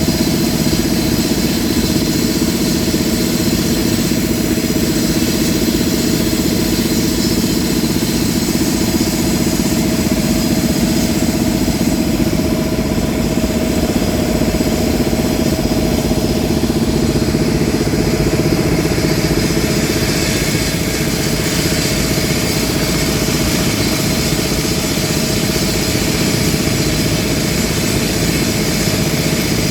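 Engine of heavy construction machinery running steadily at an even speed as one continuous drone, with a small change in its tone about two-thirds of the way through.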